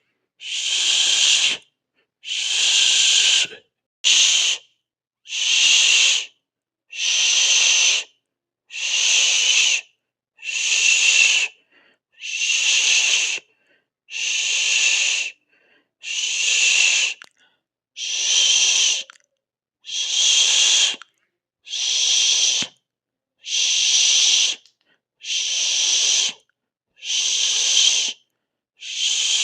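A person hissing a long breathy "sss" over and over, each hiss lasting about a second with a short silence between, roughly one every two seconds.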